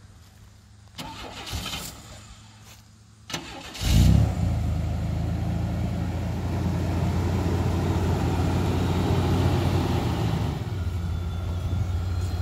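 A 1991 Chevrolet S-10's 4.3-litre V6 cranked and catching about four seconds in, then idling steadily, easing off a little after about ten seconds.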